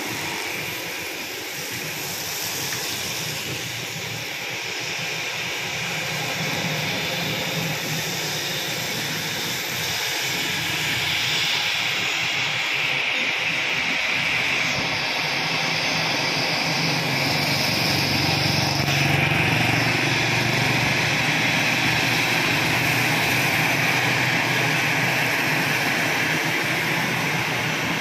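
Jet engines of an AirAsia airliner running on the runway at the start of its departure. The steady roar grows louder from about a third of the way in, peaks just past the middle and then holds as the aircraft comes close.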